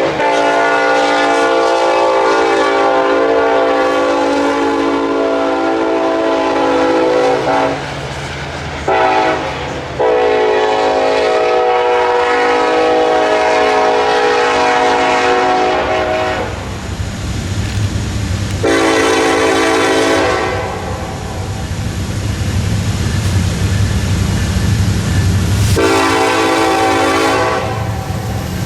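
Nathan K5LLA five-chime locomotive air horn sounding a steady multi-note chord in four blasts: two long ones, then two short ones. A low rumble of the passing train fills the gaps between the later blasts.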